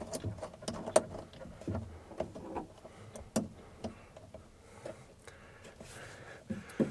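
Scattered small metallic clicks and knocks of hands working the cable lug and nut on a battery terminal, the sharpest about a second in.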